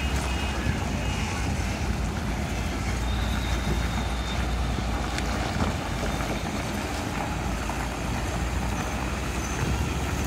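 Heavy truck's diesel engine running with a steady low rumble as the loaded livestock truck moves along the road, with road traffic around it.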